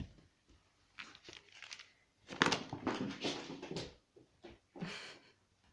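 Irregular rustling and scuffling noises of a cat playing with a toy mouse. The longest and loudest stretch comes about two and a half to four seconds in.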